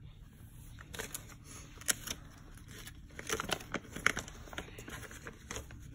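Small plastic toy pieces and packaging being handled: scattered light clicks and crinkles, the sharpest about two seconds and four seconds in.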